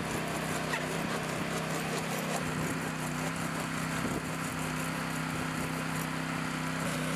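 Steady hum of an engine running, with the rasping strokes of a hand-held windshield glass saw cutting through a laminated car windshield.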